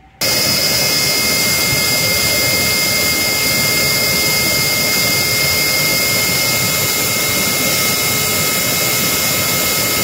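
Oster blender's brushed universal motor, its field coils freshly rewound, on a test run with its cooling fan spinning: a steady high-speed whine with a rushing hiss. It switches on abruptly and cuts off sharply about ten seconds later.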